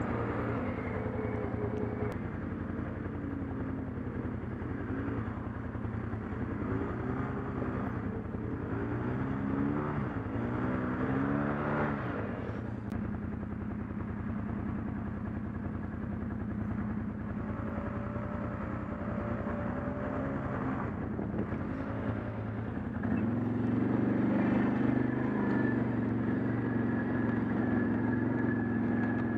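ATV engine running under load on a rough trail, its pitch rising and falling repeatedly as the throttle is worked, and getting louder about two-thirds of the way through.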